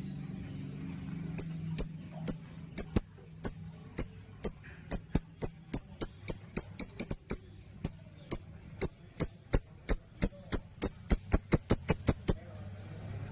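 A lovebird's ngekek chatter: a long run of short, sharp, high chirps. It starts about a second and a half in at about two chirps a second, speeds up to three or four a second, then breaks off about a second before the end. A faint low hum lies underneath.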